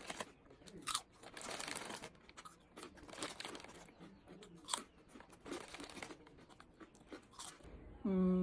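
Close-up mukbang eating of potato chips: repeated crisp crunches and chewing, with crinkling like a chip bag being handled. Near the end comes a short steady hummed "mm" of enjoyment.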